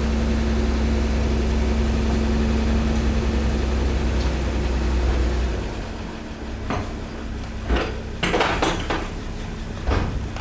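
Hydraulic waste compactor running with a steady low hum and a held tone, which drops away about five and a half seconds in; after that come several sharp metallic clanks and rattles.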